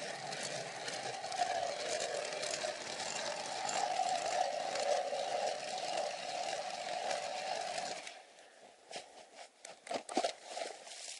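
Hand ice auger boring through river ice: a steady grinding scrape of the blades cutting. It stops about eight seconds in, followed by a few scattered scrapes and knocks.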